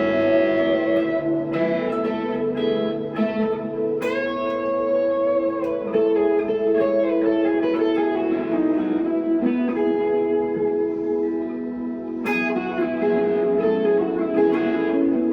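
Electric guitar, a 1963 Fender Telecaster through a valve amp, playing slow sustained notes and chords that ring out, with fresh chords struck about four and twelve seconds in.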